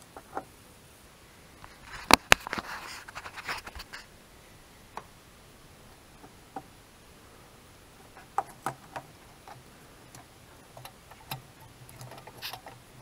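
Small clicks and rattles from a headlight bulb and its plug being handled and seated in a Ford Focus MK2 headlamp housing. The two sharpest clicks come close together about two seconds in, followed by lighter clicking, then scattered single clicks later on.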